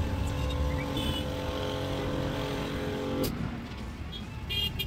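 A motor running steadily at an even pitch, cutting off abruptly about three seconds in.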